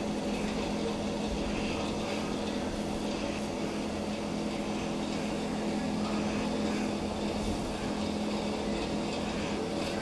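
Electric space heater running: a steady fan whir with a constant low hum.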